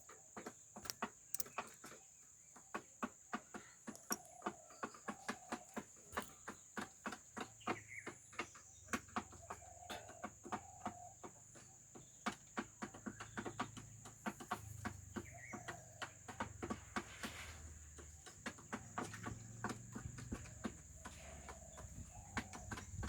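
Chickens pecking at feed: many rapid, irregular taps, with short soft clucks every second or two. A steady high insect drone runs underneath.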